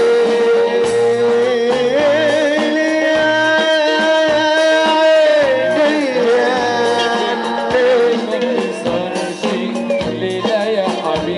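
A man singing a long, held Arabic melody with wavering ornaments over instrumental backing with percussion.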